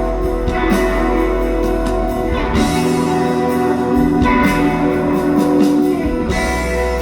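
Live band playing an instrumental passage with guitar to the fore, held chords over a bass line that shift about two and a half seconds in and again near the end.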